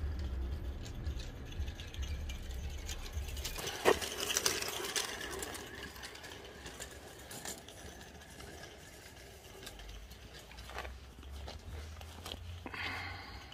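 Bassett-Lowke Enterprise live-steam model locomotive running on its track, a light rapid mechanical rattle with scattered clicks, a sharp one about four seconds in. Wind rumbles on and off on the microphone.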